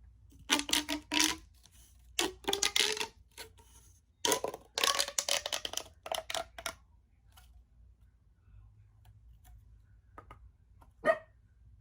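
Plastic pop tubes being stretched and squashed, making a ratcheting, buzzing whir with a pitched tone that bends up and down, in three bursts over the first seven seconds. A few short single pops follow near the end, the last one the loudest.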